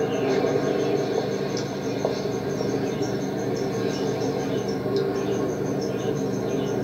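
Cricket chirping steadily, a high pulse about five times a second, over a steady low background hum.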